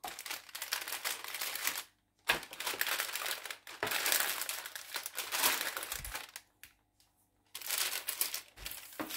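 Baking parchment crinkling and rustling as hands and a wooden rolling pin press it flat over a sheet of dough, in four bouts with short pauses between.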